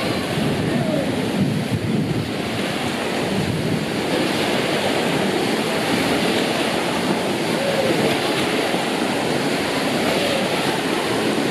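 Waves in an artificial wave pool breaking and churning: a steady, dense rush of water.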